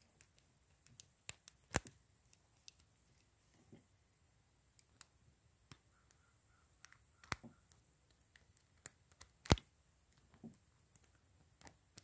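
Master Lock No. 3 padlock being picked with a bent tension wrench worked in the keyway. It gives scattered small metal clicks and ticks, three of them sharper and louder, about two seconds in, about seven seconds in and near the end.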